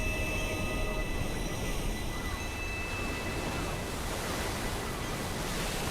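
Sea waves and wind with a steady low rumble.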